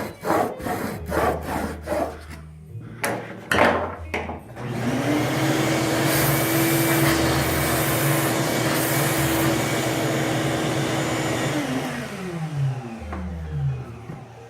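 A few rubbing strokes of a steel blade on a whetstone. About five seconds in, an electric motor starts, runs steadily for about seven seconds, then is switched off and winds down with a falling hum.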